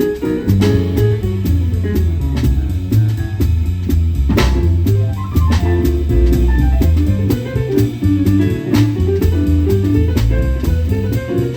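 Live jazz quartet playing: a prominent bass line under keyboard chords, with the drum kit keeping time on cymbals and drums.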